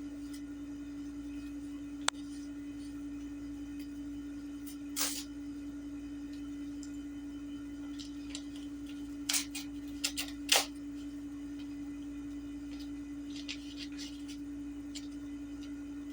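A steady electrical hum at one pitch. A sharp click comes about two seconds in, and a few short rustles of packaging being handled come around five and ten seconds in.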